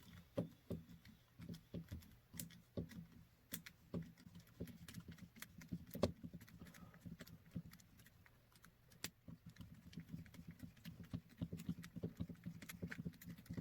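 Irregular light clicks and taps of small plastic kit parts and tools being handled and fitted by hand during an RC crawler kit build, several a second at times.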